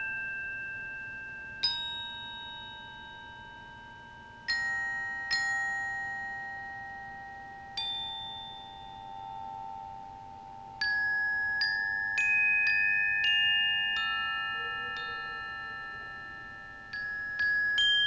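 Glockenspiel struck with mallets, playing sparse, slow notes that each ring on and overlap the next. The strikes come a few seconds apart at first and more closely from about eleven seconds in.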